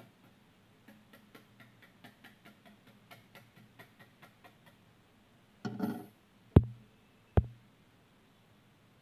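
Plastic back cover of an Oppo A11k smartphone being pressed on, its clips snapping into place in a run of soft clicks, about five a second. Just after the middle there is a brief rustle, then two sharp knocks under a second apart.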